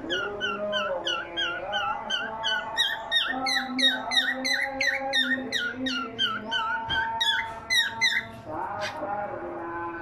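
Cockatiel chirping and whistling in a rapid run of short down-slurred notes, about three a second, stopping about eight and a half seconds in. Background music with steady held notes plays under it.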